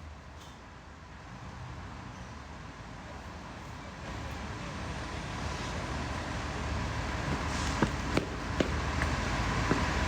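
Road traffic noise that builds steadily louder, as of a vehicle approaching, with a few sharp clicks near the end.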